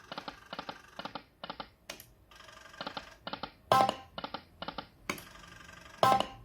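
Poker machine sound effects: runs of quick clicks, about four a second, one after another as the reels stop, with a short chime as each new spin begins, about four seconds in and again near the end.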